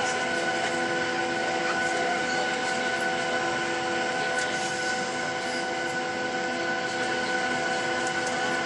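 Cabin noise of a Boeing 737-900ER taxiing, its CFM56-7B engines at idle: a steady hiss of air with several constant whining tones.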